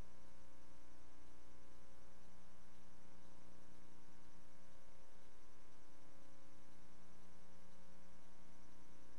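Steady electrical hum with a faint hiss and nothing else, with no change in pitch or level.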